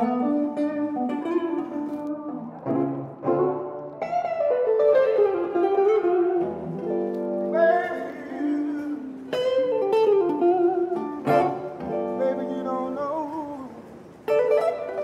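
Electric guitar played through a small amplifier, picking single-note blues lines, a run of plucked notes with some wavering, bending pitches.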